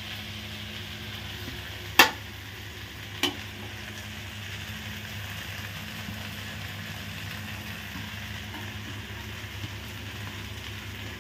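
Fried rice sizzling steadily in a steel kadai over a gas flame as chopped coriander is stirred in. Two sharp metal clinks sound about two and three seconds in, the ladle against the pan.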